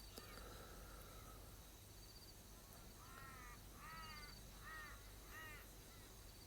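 A crow cawing, four faint harsh calls in quick succession about halfway through, over a quiet background with a faint high, steady insect-like tone.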